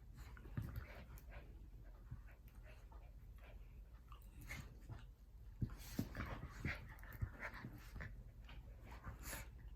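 Miniature pinschers playfighting: scuffling with many small clicks and knocks, soft panting, and a few short whimpers in the middle of the stretch.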